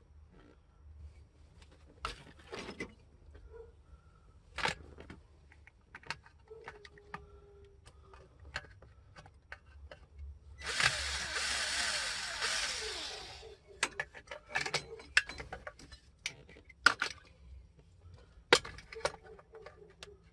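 Scattered clicks, knocks and rattles of hand tools and parts being worked on a Chevy V8's distributor and spark plug wires in the engine bay. A loud rushing noise, from an unclear source, runs for about three seconds near the middle.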